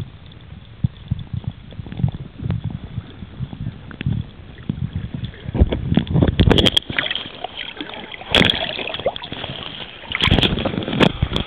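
Sea water sloshing and gurgling around a camera held underwater while snorkeling, with a low rumble and many small knocks. Several louder splashes come in the second half, the last as the camera comes up out of the water.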